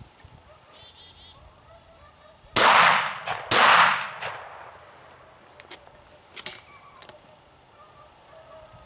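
Two gunshots about a second apart, each trailing off in an echo.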